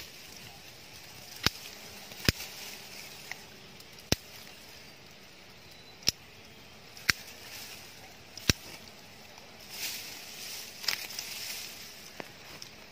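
Sharp cracks of twigs and branches, about six, spaced a second or two apart, followed by a brief rustle of leaves and brush near the end.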